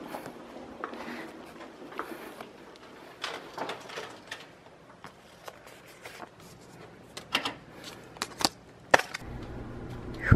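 Scattered clicks and knocks of footsteps and a hotel room door being unlocked with a keycard lock and opened by its lever handle, the sharpest clicks about eight and nine seconds in. A low hum comes in near the end.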